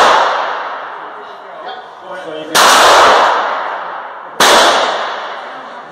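Handgun shots on a shooting range: two shots about two seconds apart, each ringing out in a long echo.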